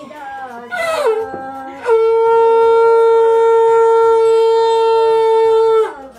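Conch shell (shankh) blown as part of a Hindu aarti. A short blast about a second in drops in pitch, then one loud, steady note holds for about four seconds and sags in pitch as the breath runs out.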